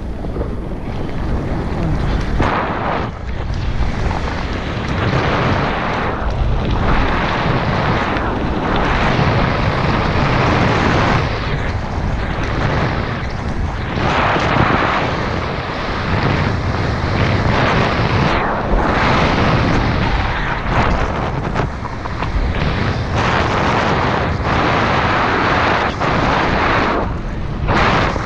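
Wind buffeting the camera's microphone, mixed with the tyre rumble of a mountain bike riding fast down a dirt forest trail. The noise is loud and steady, and it swells and eases every second or two.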